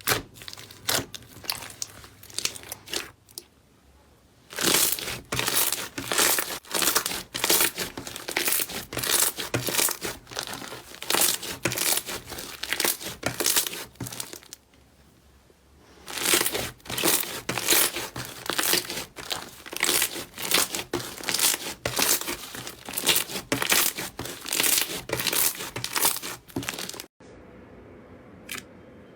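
Slime being squeezed and worked by hand, giving dense runs of crackling and popping, with two brief pauses. Near the end it cuts off abruptly to a quieter stretch.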